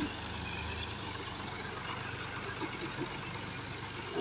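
Tractor engine running steadily at a low, even drone while the tractor works in deep mud.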